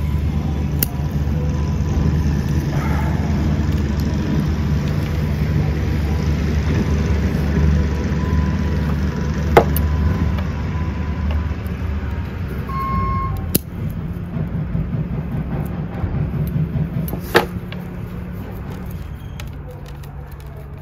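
A steady low engine rumble, like a motor vehicle running close by, fading out near the end. A few sharp clicks come from the bonsai shears and tools being worked and set down.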